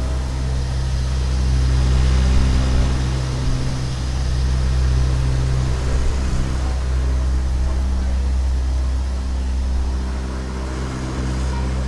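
Boat engine running steadily with a low, even drone, its note wavering slightly in strength.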